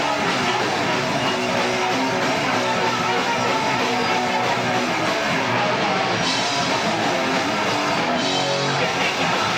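Live rock band playing loud and without a break: distorted electric guitar over a drum kit, in a heavy punk or metal style.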